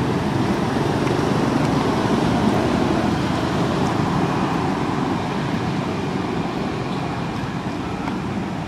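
Steady rumble of passing road traffic, fading slowly toward the end.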